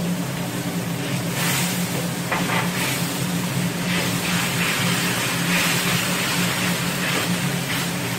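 Sauce sizzling and bubbling in a hot wok as cornstarch slurry is poured in and stirred with a wooden spatula, the hiss surging unevenly from about a second and a half in. A steady low mechanical hum runs underneath.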